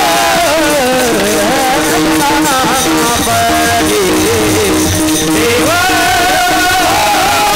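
Male voices singing a Warkari kirtan chal (devotional melody) together, with brass taal hand cymbals struck in a steady rhythm and a constant held drone note beneath. A sung phrase ends about five seconds in and a new, higher one starts.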